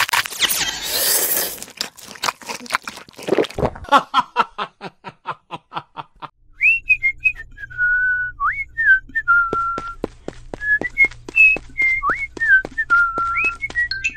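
Cartoon soundtrack: a whoosh, then a quick run of clicks, then a whistled tune of short, swooping notes over a soft, regular clicking.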